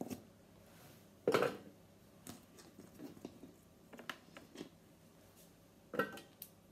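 Chopped carrots scooped by hand off a wooden chopping board and dropped into a Thermomix TM6's steel mixing bowl: a sharp clatter about a second in, a few light knocks, and another clatter with a brief ring near the end.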